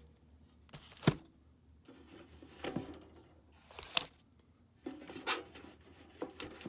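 Cardboard boxes of 7.62x39mm rifle cartridges being handled and set down on a table: scattered light knocks and rustles, the sharpest a knock about a second in.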